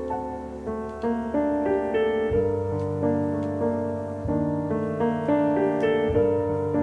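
Background piano music: a slow melody of held notes over low bass notes.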